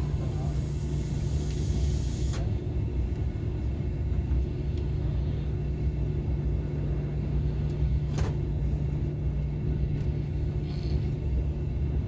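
Steady low rumble and hum of a KTX high-speed train, heard from inside the passenger cabin. A high hiss cuts off about two seconds in, and there is a single sharp click around eight seconds in.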